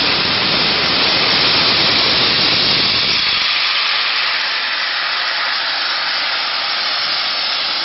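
Peppercorn A1 Pacific steam locomotive 60163 Tornado letting off steam: a loud, steady hiss. Its lower part drops away about three and a half seconds in, leaving a thinner, higher hiss.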